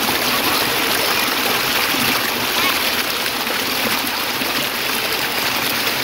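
Small creek cascading over rocks in a little step of falls: a steady rush and splash of running water.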